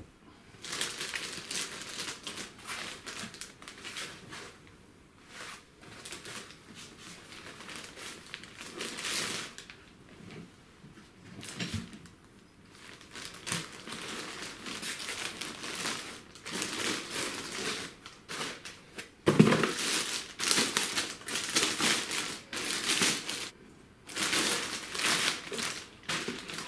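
Clear plastic packaging wrap crinkling and rustling in irregular bursts as it is handled and pulled off a boxed 3D printer. A single louder dull knock comes about two-thirds of the way through.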